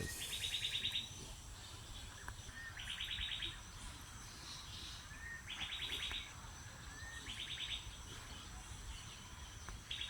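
A bird singing the same short phrase five times, about every two to three seconds: a brief rising whistle followed by a rapid trill. Under it runs a steady high insect drone.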